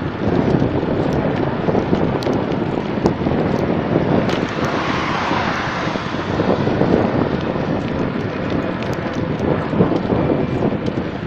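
Wind buffeting the phone's microphone while moving along an open highway, a steady rough rush of noise that swells briefly about halfway through.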